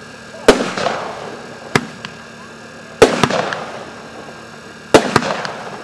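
Fireworks For All 'Trust' fireworks cake firing shot after shot: five sharp bangs a second or two apart, two of them close together near the end. Most bangs trail off in about a second of crackling.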